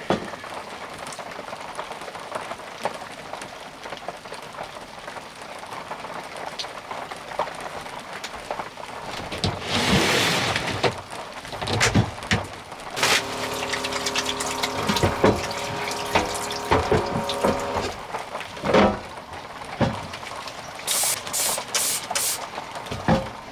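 Rain falling steadily, then water poured into a container, with several steady ringing tones as it fills. A few sharp clicks come near the end.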